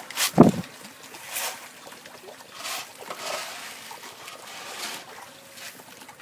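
Catfish splashing at the pond surface as they feed: one heavy, deep plop about half a second in, then several lighter splashes.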